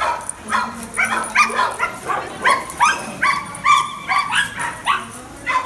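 A small dog yapping in quick high-pitched barks, about three a second, the excited barking of a terrier chasing a lure.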